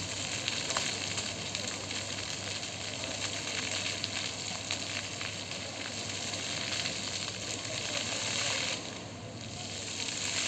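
Fountain water jets spraying and splashing into the pool, a steady hiss that dips briefly about nine seconds in and then comes back up.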